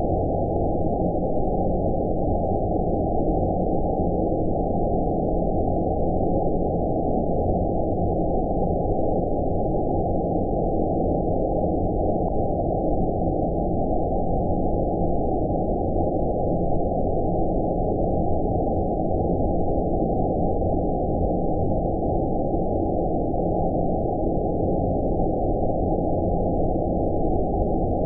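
Steady, unchanging deep noise of an "outer space" sleep-noise track, with everything above about 1 kHz cut off, so it sounds like a low, muffled rush rather than bright hiss.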